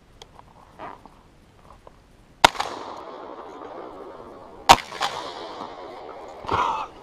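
Two shotgun shots from a double-barrelled shotgun, about two seconds apart, each dying away in a long echo. A shorter, softer noise follows near the end.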